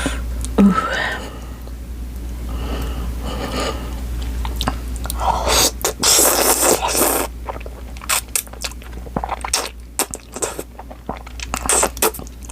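Close-miked eating: chewing and crunching of food in the mouth, with scraping, a louder rush of noise around the middle, and many small wet clicks of chewing near the end.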